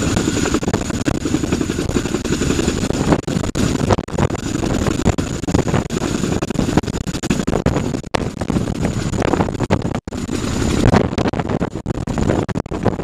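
CH-47 Chinook tandem-rotor helicopter hovering low, its twin turbine engines and two rotors making a loud, steady, heavy drone with a thin high whine over it, and the rotor wash buffeting the microphone.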